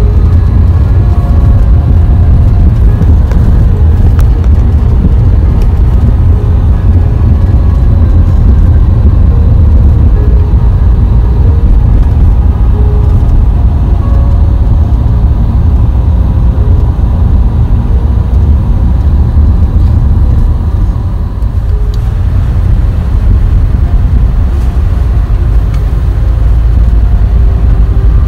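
Car cabin noise while driving: a steady low rumble of the tyres and engine.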